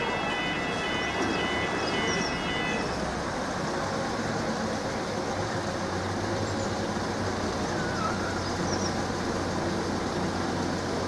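Level crossing warning alarm sounding its screamy, pulsing multi-tone wail, which cuts off about three seconds in once the barriers are down. After it, a steady rumble of road traffic with a low engine hum.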